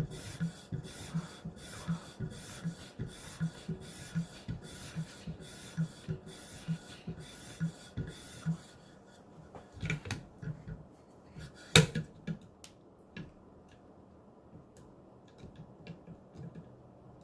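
Knife edge drawn in steady back-and-forth strokes on a leather strop, about two strokes a second, stopping about eight seconds in. A few knocks follow, with one sharp click about twelve seconds in.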